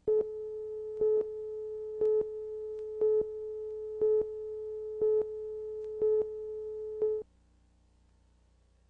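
Broadcast countdown leader tone: a steady tone with a louder beep on each second of the countdown, eight beeps, cutting off about seven seconds in.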